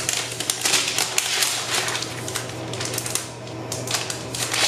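Thin plastic protective sleeve crinkling and crackling as it is pulled off a new MacBook Air, a dense run of rustling crackles that eases briefly near the end.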